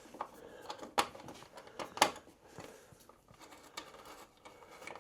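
A few sharp clicks and knocks of parts being handled and fitted by hand, the loudest about two seconds in, with faint rustling in between.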